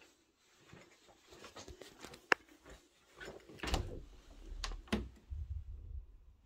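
Interior panel door to a closet being opened, with a series of clicks and knocks: the sharpest comes about two seconds in, and more knocks follow with low rumbling from about halfway through.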